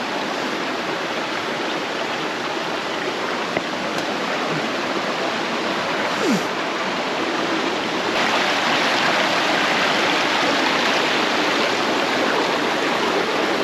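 Steady rush of a rainforest creek tumbling over rocks, growing a little louder about eight seconds in.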